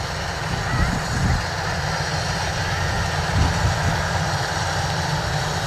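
Kubota DC-93 combine harvester running steadily, a continuous low engine rumble under a broad mechanical hiss.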